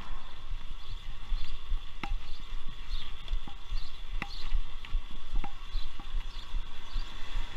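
Bicycle rolling over paving stones: a steady low rumble from the tyres, with irregular sharp clicks and knocks as the bike jolts over the joints.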